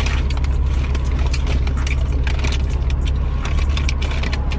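Road and engine rumble inside a moving vehicle's cabin, steady and low, with frequent small clicks and rattles on top.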